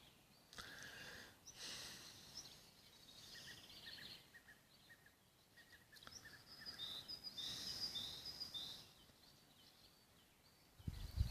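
Faint bird chirps: short, high notes in several runs, clearest about seven to nine seconds in.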